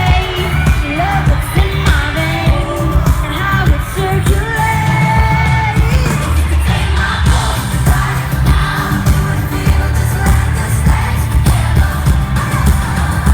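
Live pop concert performance: a female vocal group singing a melody over loud amplified backing music with a strong, pulsing bass.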